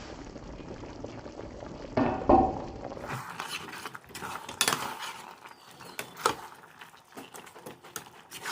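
A steady background noise with a loud knock about two seconds in. Then comes a run of sharp clinks and clicks of kitchen utensils against dishes.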